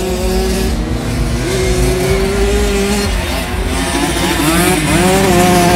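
Several Simson 60cc two-stroke single-cylinder motocross mopeds racing, their engines revving hard with overlapping tones that rise and fall as the riders work the throttle and shift.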